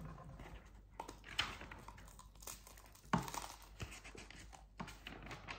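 Light handling noises: scattered rustling and crinkling with small clicks and knocks, the sharpest about three seconds in.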